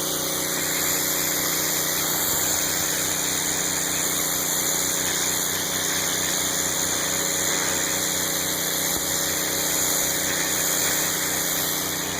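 Northstar pressure washer with its 9 hp Honda GX single-cylinder engine and pump running steadily under load. The engine's drone is mixed with the steady hiss of the high-pressure water spray on concrete.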